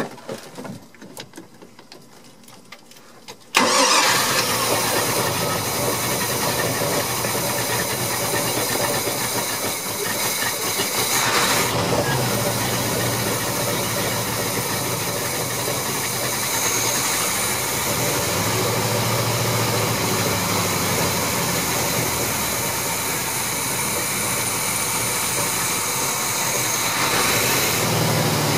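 Engine cranking on the starter for a few seconds, then catching about three and a half seconds in and running steadily on its freshly rebuilt Rochester Quadrajet four-barrel carburetor: the carb is now feeding the engine properly.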